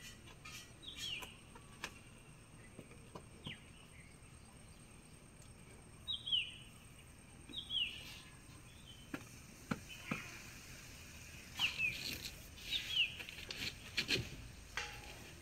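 A bird calling again and again, short chirps that drop in pitch and often come in pairs, with a few sharp clicks in between.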